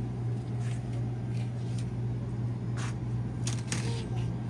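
Indoor shop background: a steady low hum with a few faint clicks and rustles about three seconds in.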